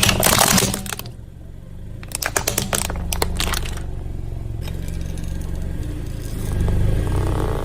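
A car tyre rolling over brittle objects and crushing them with loud crackling and snapping, twice: in the first second and again from about two to four seconds in. The car's engine rumbles low throughout.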